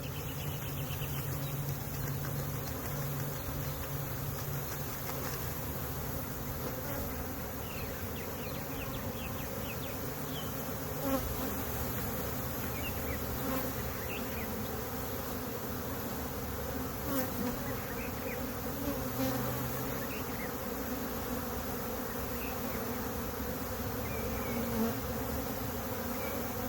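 Honey bee swarm buzzing: a steady hum of many bees.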